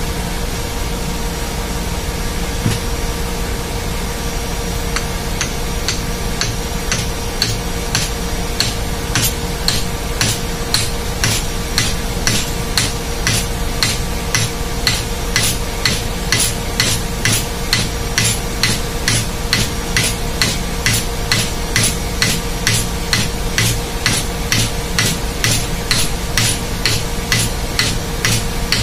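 Repeated hammer blows at about two a second on a metal plate set over an electric pump motor's shaft, driving the bearing and end cover into place. The blows start about five seconds in and grow stronger after about ten seconds, over the steady drone of ship's engine-room machinery.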